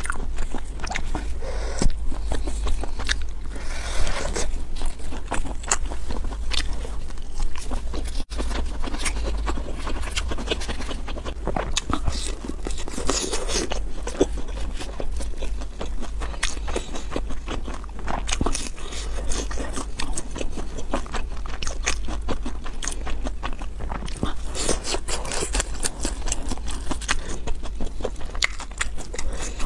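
Close-miked eating of crisp fried, breaded food such as chicken nuggets: irregular crunching bites and chewing throughout, over a steady low hum.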